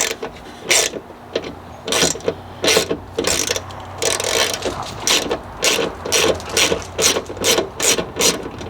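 Ratcheting wrench clicking back and forth in short strokes, about two a second and quicker in the second half, backing out a stubborn 10 mm bolt.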